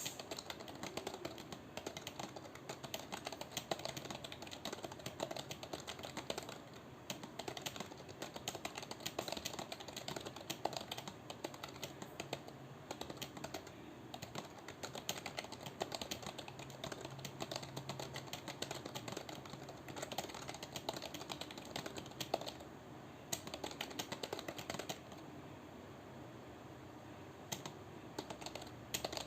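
Computer keyboard being typed on continuously, a quick run of key clicks with a short pause near the end.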